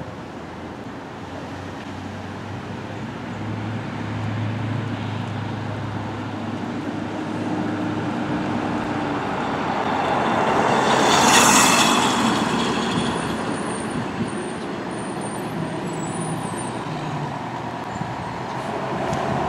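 Fire trucks driving along the street: engine hum and road noise that swells to a peak about eleven seconds in as one passes, then fades.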